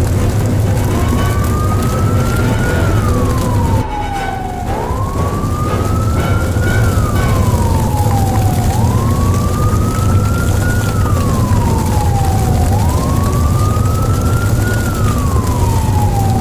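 A siren wailing slowly up and down, each rise and fall taking about four seconds, repeated four times over a steady low rumble.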